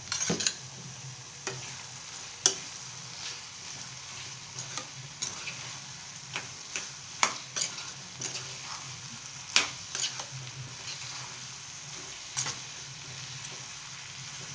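A spatula stirring bitter gourd and tomato pieces in a non-stick kadai, knocking and scraping against the pan in irregular clicks about once a second, over a steady sizzle of the vegetables frying in oil.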